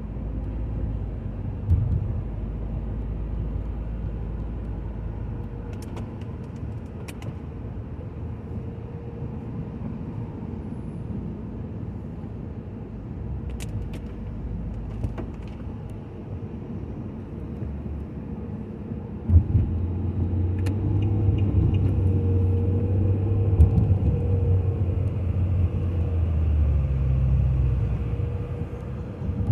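A car on the road: steady engine and road rumble that grows louder about two-thirds of the way in, with a few faint clicks.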